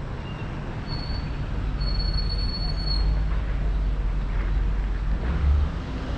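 Street traffic passing with a steady low rumble that swells and fades, and a thin high-pitched squeal lasting about two seconds, starting about a second in.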